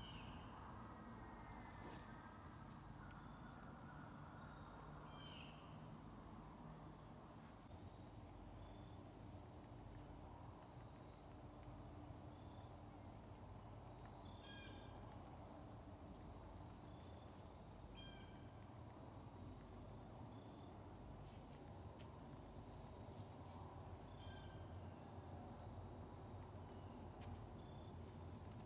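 Faint woodland insect trill, a steady high-pitched drone. About a third of the way in, short high chirps join it and repeat every second or two.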